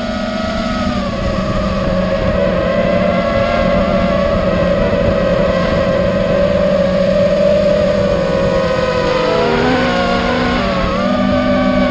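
FPV quadcopter's brushless motors and propellers whining, heard from the onboard camera, over a low rushing noise. The pitch holds fairly steady, then dips and climbs back near the end as the throttle changes through a turn.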